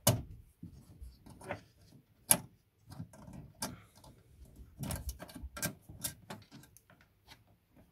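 Irregular sharp plastic clicks and knocks from the back of a Citroën C4 Grand Picasso headlamp as its bulb, wire clip and wiring connectors are handled inside the socket. The loudest clicks come right at the start and about two seconds in.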